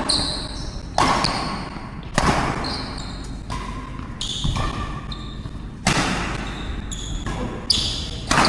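Badminton rally: sharp racket strikes on the shuttlecock about a second in, at about two seconds, near six seconds and twice near the end, echoing in a large hall, with short high shoe squeaks on the court floor between them.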